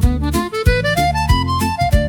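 Upbeat background music: a fiddle-like melody climbing and falling over a steady beat.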